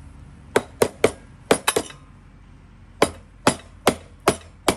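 Rubber mallet tapping on the cast-metal gearbox housing of a Segway X2 to knock the gearbox loose. Six quick sharp taps in the first two seconds, a short pause, then five more evenly spaced taps.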